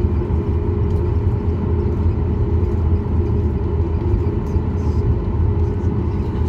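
Cabin sound of a Boeing 737 MAX 8 heard over the wing: its CFM LEAP-1B engines running with a steady low rumble and hum, with no spool-up, as the jet rolls along the runway.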